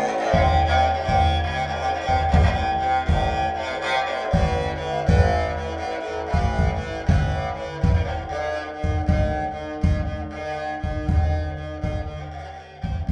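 A homemade three-string tagelharpa (jouhikko), tuned C, A1 and A2, bowed in a slow improvised tune with sustained notes, under reverb. A hand frame drum beats steady low thumps along with it, and the music grows quieter toward the end.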